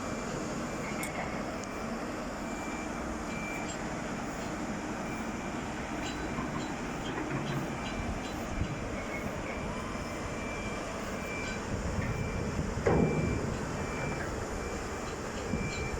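Heavy yard machinery running steadily during a yacht launch, with a short high warning beep repeating about once a second. About thirteen seconds in there is a brief, louder sound that sweeps down in pitch.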